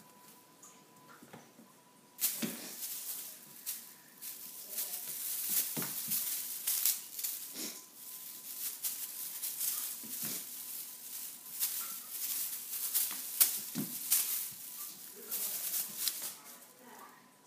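Tinsel wand toy crinkling and rustling in irregular bursts as kittens bat and pounce at it, starting about two seconds in.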